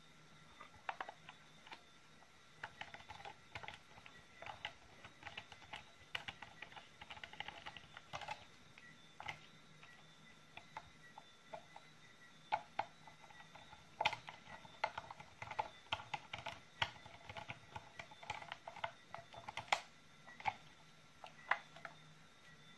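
Hand screwdriver driving screws into the plastic case of a Makita 18 V battery pack: a long run of irregular small clicks and ticks from the bit and the handled plastic housing.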